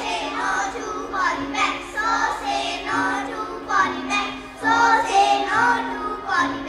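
A group of children singing a poem in chorus into microphones over steady instrumental backing music.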